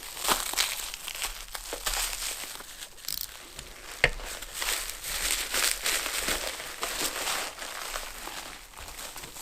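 Packaging being unwrapped by hand, crinkling and rustling in quick irregular strokes, with one sharp click about four seconds in.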